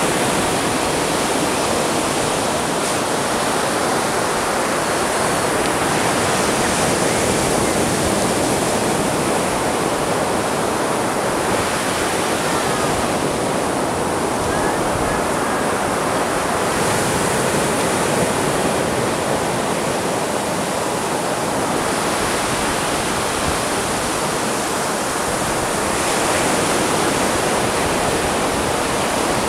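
Ocean surf breaking on a beach: a continuous rush of waves that swells and eases every few seconds.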